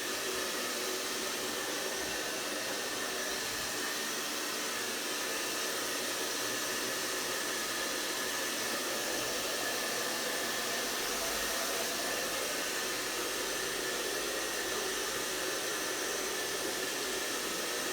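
A steady, even rushing noise with faint steady tones in it, holding at one level.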